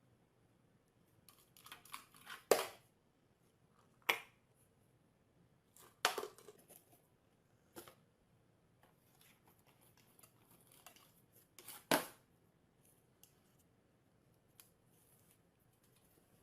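Short rustling noises, a few at a time, the four loudest spread out at uneven intervals, with quiet room tone between them.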